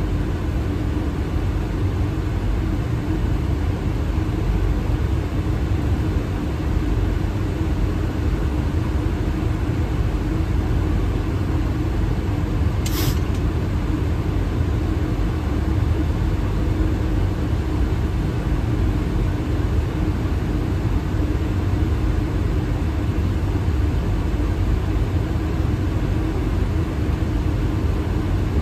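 Steady airliner cockpit noise on approach: a continuous rumble of airflow and engines with a low steady hum. A single short click about halfway through.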